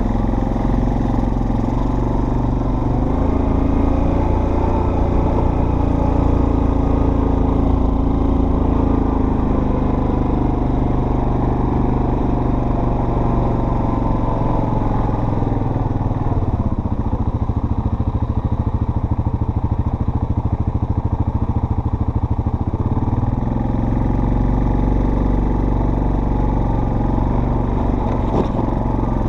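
Off-road vehicle engine running steadily under way. The engine note drops lower for several seconds past the middle, then picks up again.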